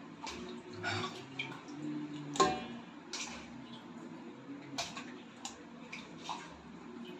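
Pieces of wet raw fish handled and set into a stainless steel bowl: scattered light knocks and wet clicks, with one sharper knock on the metal bowl about two and a half seconds in that rings briefly.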